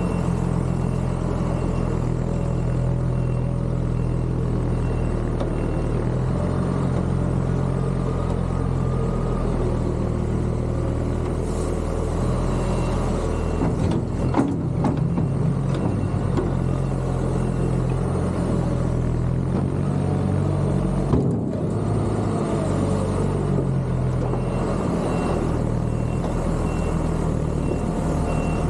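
Tractor diesel engine running steadily at a constant pace, with a few brief knocks about halfway through.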